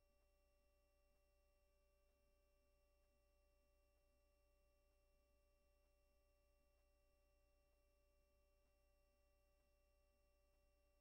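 Near silence, with only a faint, steady electrical hum and thin whine.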